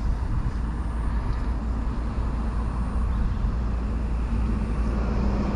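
Steady outdoor background rumble and hiss with no distinct event, heaviest in the low end. A low steady hum joins about four seconds in.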